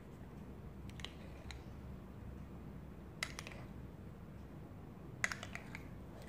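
A metal spoon scraping and tapping against a bowl and a blender jar as ice cream is scooped in: a few faint clicks, then louder knocks about three seconds in and again near the end, over a low steady hum.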